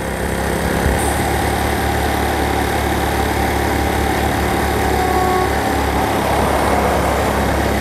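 A vehicle's engine running steadily as it drives along a road, a low hum under road noise.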